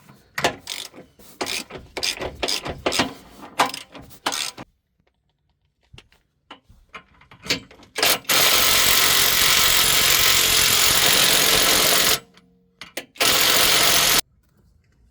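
A ratchet wrench clicking in quick strokes as the 24 mm rack-and-pinion bolts are loosened. Later a power tool runs steadily for about four seconds, then again briefly about a second later.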